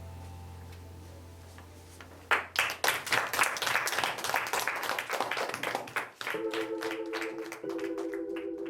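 Background music fading out, then a small group clapping from about two seconds in. A steady pulsing organ-like keyboard tone starts about six seconds in under the clapping.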